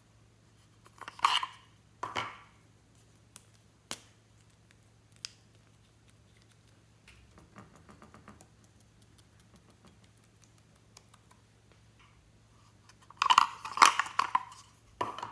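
Short bursts of clattering and scraping as a small wooden photo frame is handled, about a second in and again near the end, with a few single clicks in between. In the middle come faint quick taps of a marker tip dotting onto glossy slime.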